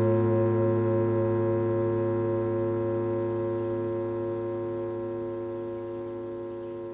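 A held musical chord of several steady tones, slowly fading out as the track ends.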